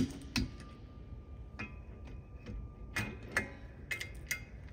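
3/8-inch drive torque wrench ratcheting and clicking as bolts are tightened to 35 ft-lb in a star pattern: sharp metallic clicks, several irregularly spaced, some with a brief ring.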